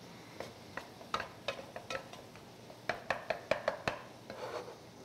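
Silicone-tipped kitchen tongs clicking, tapping and scraping in a nonstick frying pan as chicken pieces in curry sauce are turned over. Scattered single clicks give way to a quick run of about six clicks around the middle, then a short rustle of stirring near the end.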